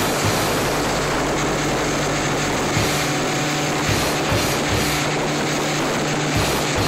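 Suzuki outboard motor running steadily at speed, with the rush of wind and the boat's wake.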